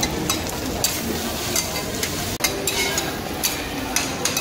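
Fried rice and egg sizzling on a hot teppanyaki griddle while two metal spatulas scrape, chop and clink against the steel plate in irregular sharp strikes.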